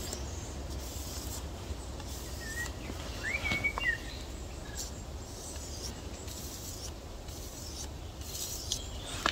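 Knife edge drawn in light, repeated strokes along sandpaper, a soft scraping rub: the set of four honing strokes that polishes an already sharp Scandi-ground edge. A few short bird chirps come about a third of the way in.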